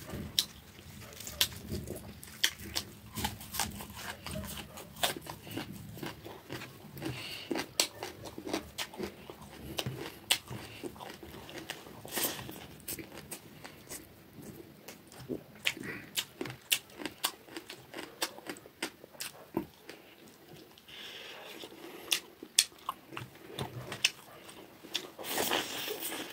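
Close-miked mouth sounds of a man eating rice and fish curry by hand: chewing, biting and lip smacks, with many short wet clicks throughout.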